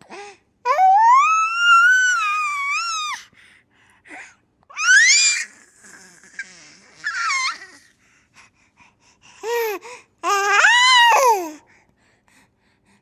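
Baby making high-pitched squeals and wails: one long call that rises and falls, then four shorter ones, some rising sharply, with quiet gaps between.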